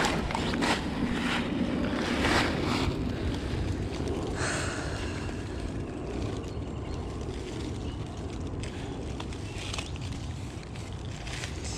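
Footsteps crunching through dry fallen leaves, irregular and strongest in the first few seconds, over a steady rumble of wind on the microphone.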